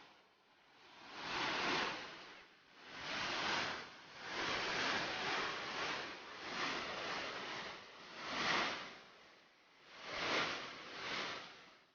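Rushing water of a flash-flood torrent pouring between rocks after heavy rain, the noise swelling and fading every second or two.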